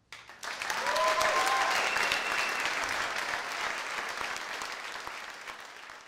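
Audience applauding at the end of a talk. The clapping swells quickly, then slowly fades toward the end.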